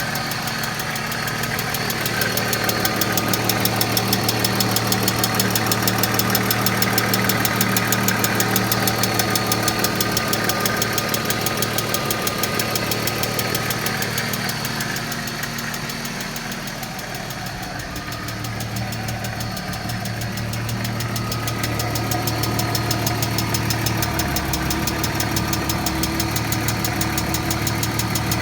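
1995 BMW E36 M3's S50 straight-six running steadily with a loud, rapid ticking from its lifters.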